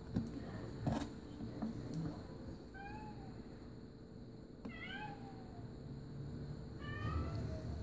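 Domestic cat meowing three times, short bending calls about two seconds apart. A couple of sharp clicks come in the first second.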